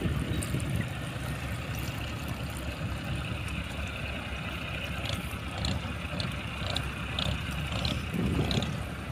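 Steady low rumble of a fishing boat's diesel engine running, mixed with wind on the microphone. From about halfway, faint light ticks come about twice a second.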